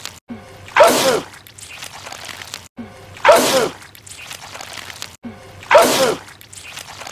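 A man's loud sneeze, the same sneeze clip looped three times, about every two and a half seconds. Each one is a short falling cry over a burst of hiss, with a brief cut just before it.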